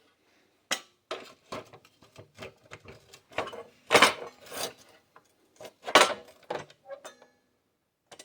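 Irregular metallic clanks and knocks from tools and steel being handled, with no saw running; the two loudest come about four and six seconds in.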